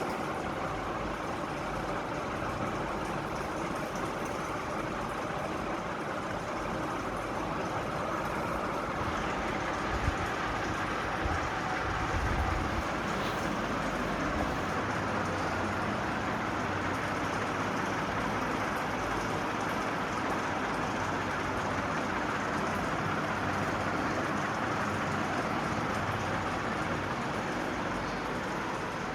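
National F560A1 ceiling fan running: a steady rush of moving air over a faint low motor hum, with a few low bumps about ten to twelve seconds in.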